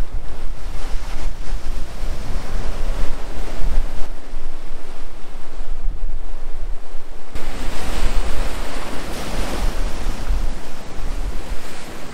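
Sea waves breaking on the shore, with wind buffeting the microphone in a low rumble. About seven seconds in, a bigger wave breaks and washes up with a louder hiss.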